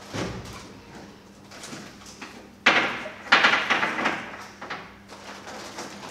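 Plastic shopping bag and snack packets rustling and crinkling as purchases are handled and packed, in two loud bursts: a short one about two and a half seconds in and a longer one starting about a second later.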